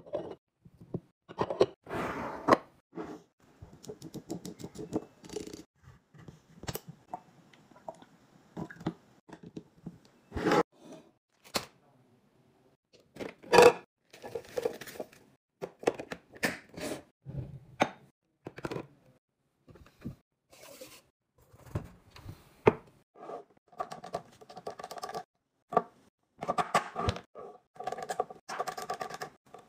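A string of short handling sounds: a wooden lid knocking onto a ceramic butter dish, packaging tearing and rustling, and a snack bag emptied into a clear plastic container, with sharp taps and clicks throughout.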